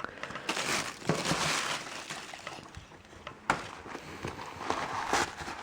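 Rustling of the shoes and their packaging being handled, with a few sharp clicks.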